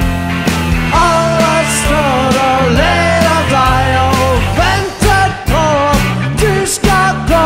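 Rock band playing live: electric guitar, bass and drums, with a voice singing over them and drum hits marking the beat.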